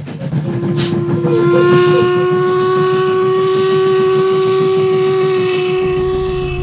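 A single long whistle held at one steady pitch, starting about half a second in and lasting about six seconds, over a low rumble.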